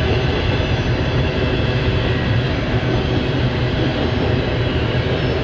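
Double-stack intermodal container train rolling past: a steady rumble of freight car wheels on the rails.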